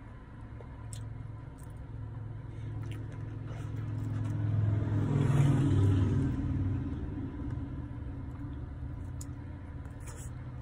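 Low rumble of a passing motor vehicle, swelling to its loudest about five seconds in and then fading away.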